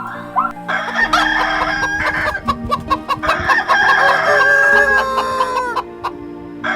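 Rooster crowing, ending in a long held note that drops away near six seconds in, over soft background music.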